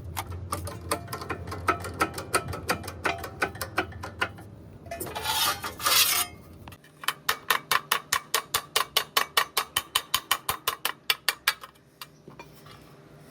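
Hand ratchet wrench clicking rapidly, about five or six clicks a second, in two runs as a bolt is turned. Between the runs, about five seconds in, comes a short, loud hiss.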